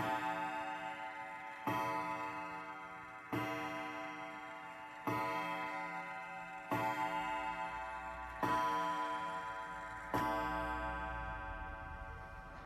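Old pendulum wall clock striking the hour: seven evenly spaced strokes, about one every 1.7 seconds. Each stroke rings with several tones and fades before the next, and the last one rings out slowly.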